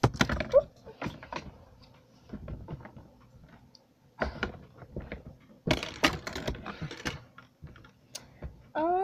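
Irregular clicks, taps and rustles of small objects and packaging being handled close to the microphone, coming in several clusters.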